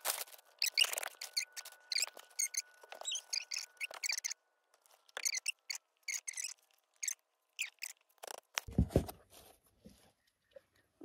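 Crackling and rustling of a crusty loaf being torn apart by hand, in many quick crisp crackles that come thick at first and grow sparser after about four seconds. A dull thump comes just before the end.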